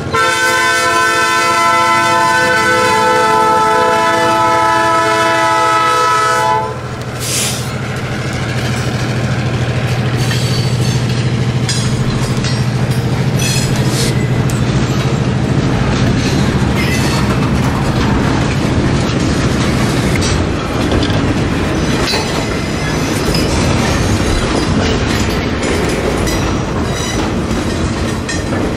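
Locomotive horn sounding a chord that cuts off about seven seconds in, over the diesel engine of an SW1200R switcher as it passes. Then a long string of boxcars rolls by, steel wheels clattering over the rail joints and the grade crossing.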